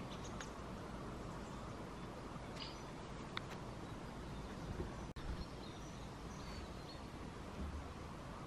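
Quiet open-air ambience: a steady low hiss of background noise with a few short, faint bird chirps scattered through. The sound drops out for an instant about five seconds in.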